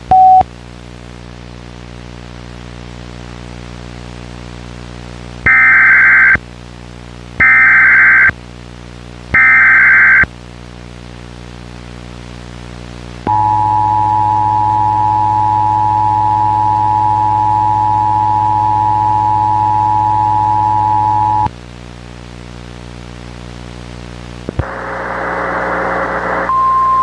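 Emergency Alert System tones. Over a steady low buzzing hum come three loud warbling SAME header data bursts of about a second each, two seconds apart, then the two-tone EAS attention signal for about eight seconds. Near the end a burst of static gives way to a single steady alert tone.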